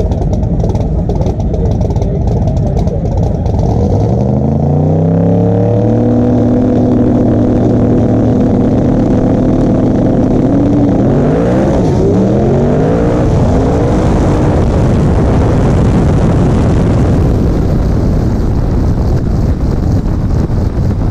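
Small-tire no-prep Corvette drag car's V8 engine revving up on the start line and holding steady revs, as on a two-step launch limiter. About 11 seconds in it launches: the revs drop and climb again through several quick swoops as it shifts. Then engine and wind rush take over as the car runs down the track.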